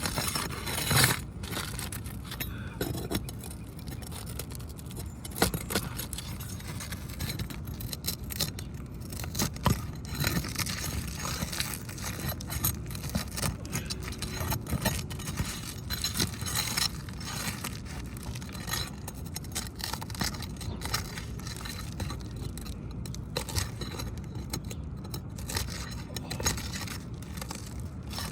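Scraping and short metallic clicks as a tool works under old, brittle asphalt roof shingles to break the seal and pull out the roofing staples.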